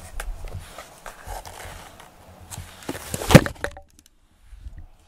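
Soft rustling and light knocks of handling, with one sharp, loud thump about three and a half seconds in, followed by a brief moment of dead silence.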